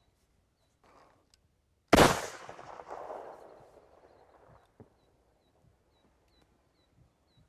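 A 26.5 mm flare pistol fires once, about two seconds in: a single sharp report followed by an echo that rolls away over about two and a half seconds.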